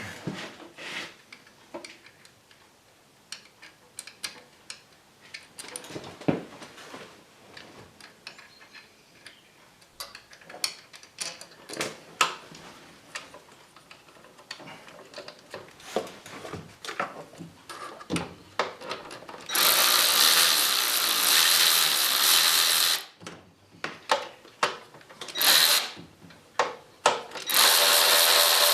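Metal hand tools and sockets clicking and knocking during bolt removal in an engine bay, then a power tool, likely a drill or electric ratchet, running in three bursts: a long one of about three seconds, a short one, and one more near the end.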